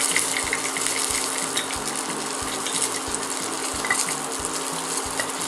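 Portable induction hob running: a steady hum and hiss with a soft low pulse repeating about three times a second.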